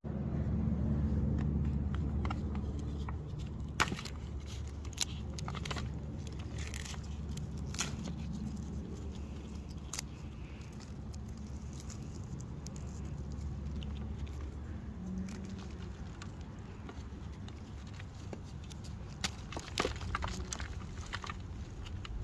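Dried clay shell cracking and peeling off blocks of gym chalk, and the chalk breaking apart under fingers: scattered sharp crackles and snaps, with a thicker cluster about 4 to 8 seconds in and another near the end. A steady low rumble runs underneath, strongest at the start.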